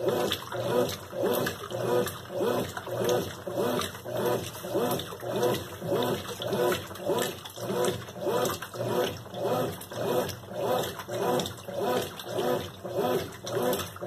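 Consul Maré Super 10 kg (CWL10) washing machine agitating a load of clothes in soapy water: the motor swings the wash back and forth in a steady rhythm of about three sloshing strokes every two seconds.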